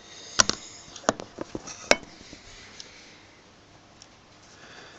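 Small metal parts of a dismantled ECC82 vacuum tube clicking and tapping as they are handled: about five sharp clicks in the first two seconds, then only faint handling.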